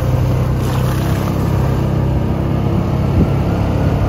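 Engine of an open off-road vehicle running steadily as it drives along a rough dirt trail, with a single sharp knock about three seconds in.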